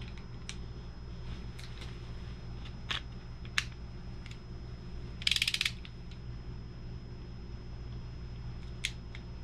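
Hand tools on engine bolts: scattered metallic clicks and, about five seconds in, a short quick run of ratchet clicks as a ratchet or torque wrench with a 5 mm Allen bit is worked on a timing-chain guide bolt of a VR6 engine. A steady low hum sits underneath.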